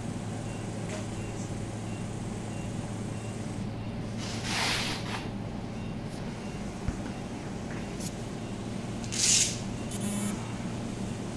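Steady low hum of running equipment, broken by a few short hisses of air or spray, the loudest about nine seconds in.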